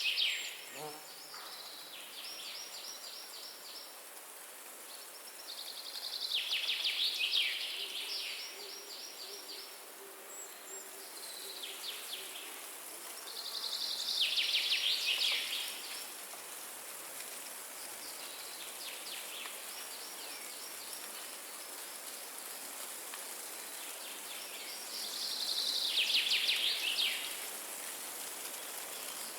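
Forest ambience: a steady hiss of wind in the trees, with a bird singing a rapid trill of about two seconds four times, loudest at the start and about 7, 15 and 26 seconds in, and fainter trills from other birds between them.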